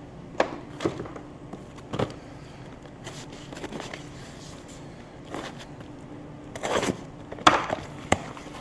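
Cardboard shipping boxes handled and opened by hand: scattered rustles, scrapes and light knocks of cardboard on a wooden bench, with a few louder scrapes and knocks near the end as the box flaps are pulled open. A faint steady hum runs underneath.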